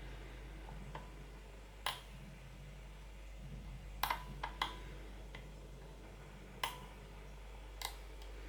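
Sharp metal clicks from a disc pick rotating the discs of an Abloy disc-detainer cam lock during picking: about seven clicks at uneven intervals, four of them bunched together near the middle.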